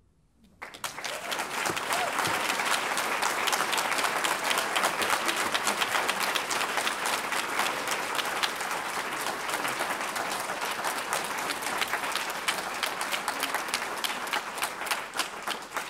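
Audience applauding: dense clapping from a roomful of people, starting just under a second in and easing slightly near the end.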